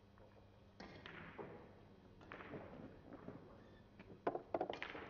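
Russian billiards balls clicking: a quick series of sharp knocks a little over four seconds in, as the cue strikes the ball and the balls collide. Softer knocks and hall noise come before it.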